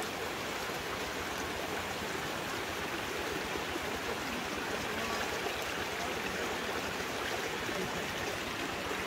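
Steady rushing of flowing water, an even noise with no breaks.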